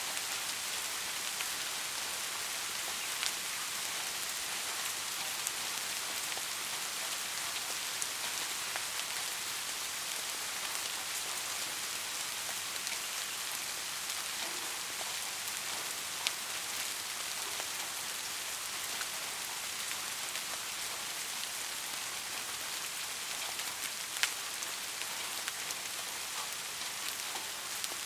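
Steady rain falling, an even hiss with a few sharper, louder drop taps standing out now and then.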